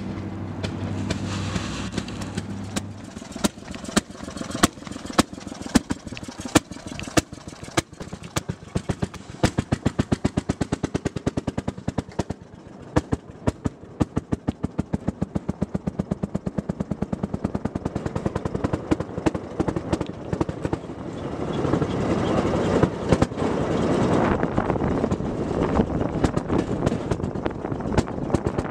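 Small engine of a Fairmont rail speeder popping, slow separate pops at first that quicken into a rapid, even putter as the car gets under way. In the last third a louder rumble of the car running along the rails joins it.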